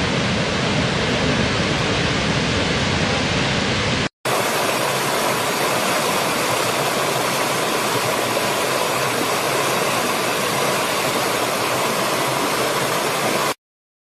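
Steady rushing of a large waterfall, deep and full. It cuts off abruptly about four seconds in, and after a brief gap gives way to the thinner, brighter rushing of a shallow stream running over rocks, which stops suddenly near the end.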